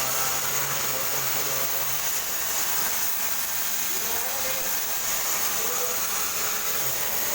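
Electric arc welding: a steady frying hiss from the welding arc, with a low hum that stops about two seconds in.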